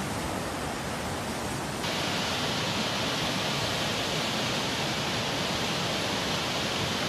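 Floodwater rushing in a steady, even roar. It gets slightly louder and brighter about two seconds in.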